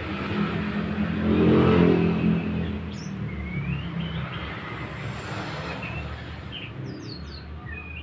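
A motor vehicle passing by, its engine swelling to a peak about two seconds in and then fading away. Birds chirp briefly in the second half.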